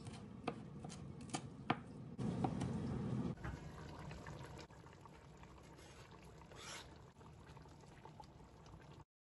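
A knife chopping fresh coriander on a plastic cutting board, a few sharp knocks in the first two seconds; then a pot of meat stew simmering, a steady liquid bubbling and hiss, with a brief scrape as it is stirred with a wooden spatula.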